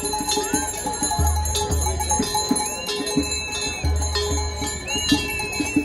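Large Swiss cowbells (Trycheln) swung by a group of bell ringers, clanging in a steady rhythm with ringing tones, over the general noise of a marching crowd.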